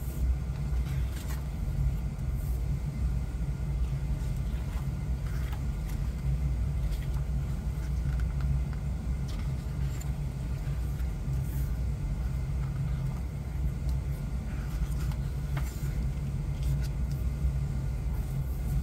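A steady low rumble of background noise, with faint, scattered paper rustles and light taps as the pages of a CD digipack's booklet are turned and the case is handled.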